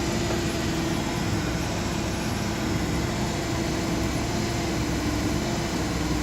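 Steady machine hum, like an engine idling, with one constant tone that does not change.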